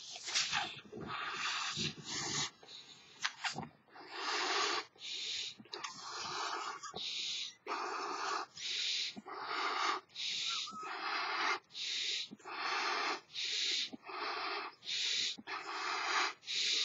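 A large elephant balloon being blown up by mouth: a steady run of strong breaths forced into the balloon's neck, a little more than one a second, each a short rushing puff with a quick catch of breath between. The first few seconds are more uneven before the rhythm settles.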